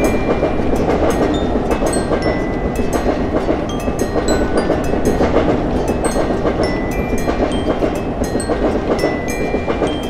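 Passenger train passing at speed: a steady rumble of wheels on rail, with clattering and scattered short metallic pings.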